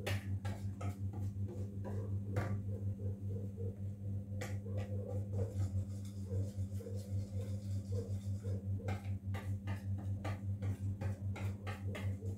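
Stainless-steel hand flour sifter clicking repeatedly as its handle is worked, flour falling into a bowl of batter, with a wire whisk ticking against the bowl, over a steady low hum.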